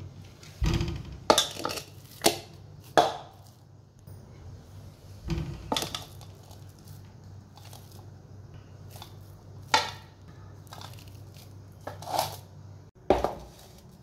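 Spoon knocking and scraping against a steel pot as a thick kabab mixture is scooped out and dropped into a ceramic bowl: about eight sharp, irregular knocks, the loudest in the first three seconds.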